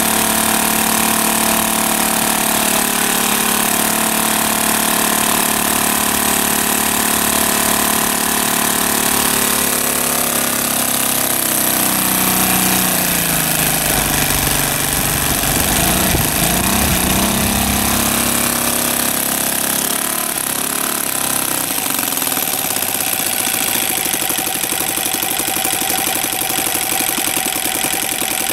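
Kolm EZ65 model-aircraft engine with propeller running on a test stand on its first run. It runs steadily at speed, then its pitch drops and wavers through the middle, and it settles into a slow, evenly chopping idle for the last several seconds.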